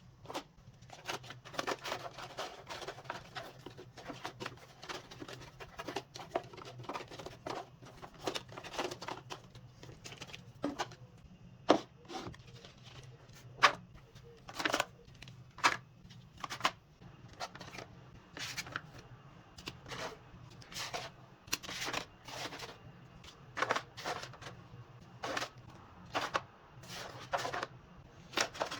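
Small packaged items being handled and set down: irregular clicks and taps with rustling and crinkling of packaging between them, over a steady low hum.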